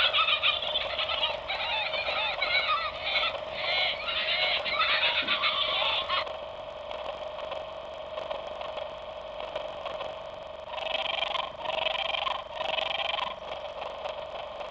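Animal calls: many overlapping wavering chirps for about six seconds, then quieter, with three short bursts of calls near the end.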